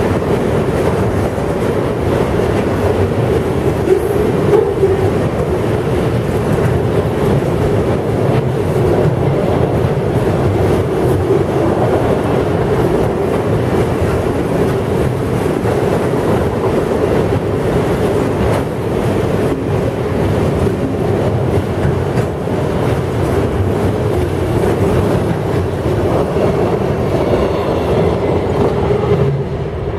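Freight train of autorack cars rolling past close by: a steady rumble and rattle of steel wheels on the rails, with a continuous droning hum and light clicking of wheels over the rail joints. The sound falls away at the very end as the last car goes by.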